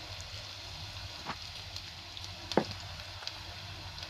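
Onions, green chillies and dried red chillies sizzling steadily as they fry in oil in a stainless steel kadai. A metal spatula knocks against the pan twice, the louder knock about two and a half seconds in.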